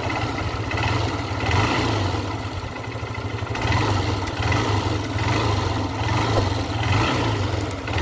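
Honda Unicorn motorcycle's single-cylinder engine running with a rattling 'karra karra' knock from inside the engine, the sign of a failed connecting rod.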